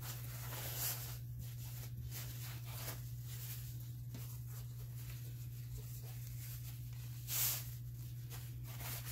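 Faint rustling and brushing of pleated fabric trim being handled and pressed together, over a steady low hum. A louder brush of fabric comes about seven seconds in.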